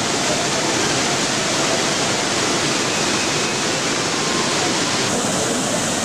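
Waterfall rushing steadily, falling water pouring without a break; the sound turns slightly brighter about five seconds in.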